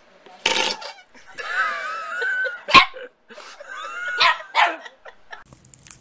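A small terrier barking and yipping in two rough stretches of high cries, with a short noisy burst just before and a sharp crack between them.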